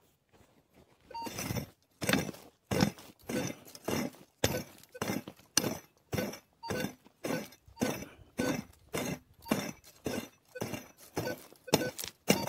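A metal digging tool striking repeatedly into dry, stony ground, about two strikes a second, starting about a second in: digging out a metal detector target.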